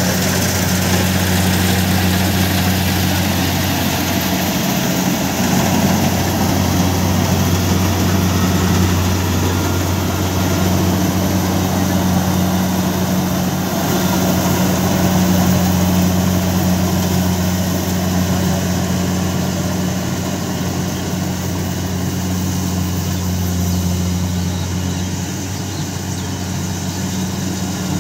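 Kubota DC68 rice combine harvester's 68 hp diesel engine running steadily under load while it cuts and threshes ripe rice: a continuous low engine hum with broad machinery noise over it, a little quieter near the end.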